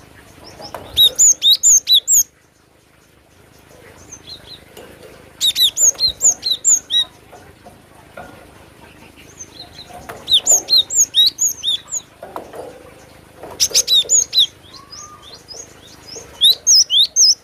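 Cinereous tit (glatik batu) singing: five bouts of a fast run of sharp, high repeated notes, each bout about a second or a second and a half long and spaced several seconds apart, with fainter calls between them.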